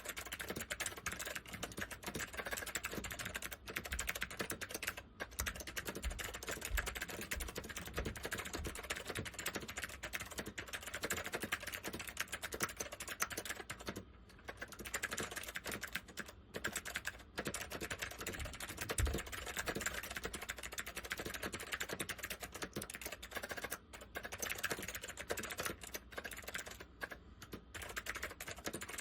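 Fast, continuous typing on a Northgate OmniKey 101 mechanical keyboard with waxboiled Alps SKCM White switches, a dense run of key clicks with a few short pauses.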